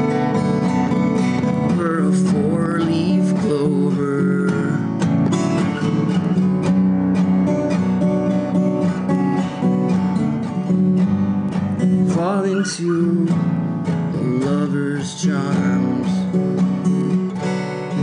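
Steel-string acoustic guitar strummed steadily, playing chords in an instrumental passage of a song.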